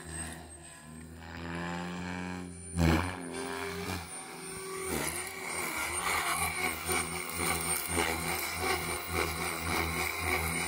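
OMPHOBBY M4 MAX electric RC helicopter in flight: a motor whine and rotor blade noise that rise and fall in pitch as the rotor is loaded through manoeuvres. There is a loud surge about three seconds in.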